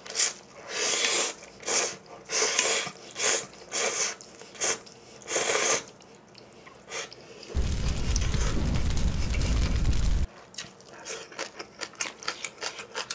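Ramyeon noodles slurped in a series of short, loud pulls, then one long slurp lasting about two and a half seconds. Rapid, clicky chewing with a full mouth follows.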